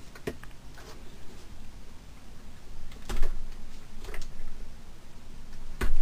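Handling noises from a plastic QS8 connector and its wire: scattered light clicks and knocks, with a sharper knock about three seconds in and the loudest one just before the end.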